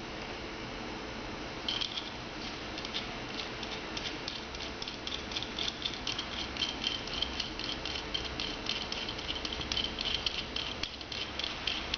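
Locking pliers being worked by hand after fitting a new spring: quick, irregular metallic clicking and rattling that starts about two seconds in and carries on, over a steady low hum.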